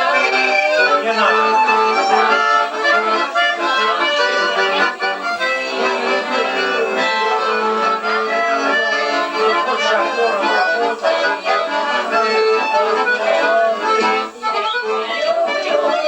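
Bayan (Russian button accordion) playing a traditional tune, with sustained chords under the melody throughout.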